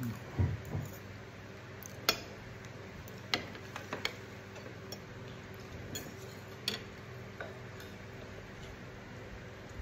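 Metal spoon and fork clinking and scraping against a ceramic bowl of soup, a scattering of sharp single clinks, the loudest about two seconds in. Mouth sounds of eating a spoonful in the first second, over a faint steady hum.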